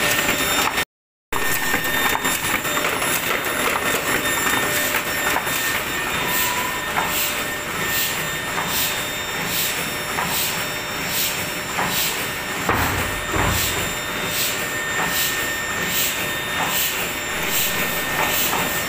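Heidelberg GTO 52 sheetfed offset printing press running in production: a steady mechanical clatter with a regular hissing beat about twice a second as the feeder cycles sheets through.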